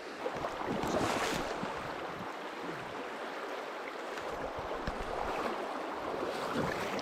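Shallow river running over a stony bed: a steady rush of water, swelling briefly about a second in.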